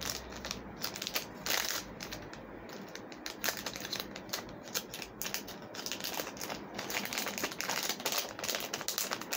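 Plastic packaging crinkling and rustling as it is handled, a run of irregular crackles.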